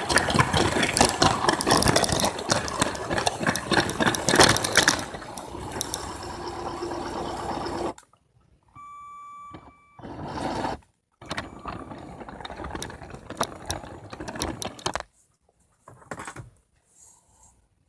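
Motorized Lego train running: a small electric motor whirring with dense rattling clicks for about five seconds, then a quieter steady hum. It cuts off suddenly about eight seconds in, followed by short stop-start bursts of the same whirring.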